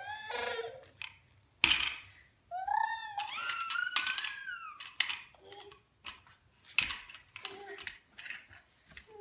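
A baby babbling and squealing in a high voice, one long rising squeal in the middle, with sharp knocks and clicks of hard plastic toy cars being set down and banged, the loudest knock coming soon after the first squeal.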